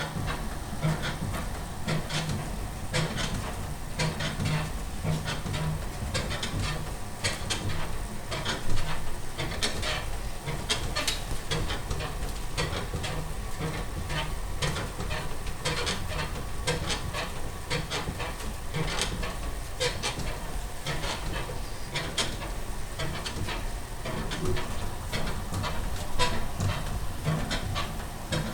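Freemotion 510 elliptical trainer in use, squeaking and clicking in a steady rhythm about once or twice a second with each stride, over a low rumble of the moving machine. The squeak is an unwanted noise from the machine.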